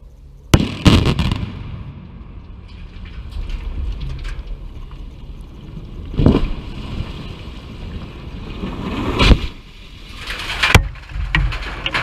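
Explosive demolition charges going off at the base of industrial chimneys: a sharp crack about half a second in, then heavy low rumbling of falling masonry and debris. Further loud blasts or impacts come around six and nine seconds in, and another sharp crack near the end.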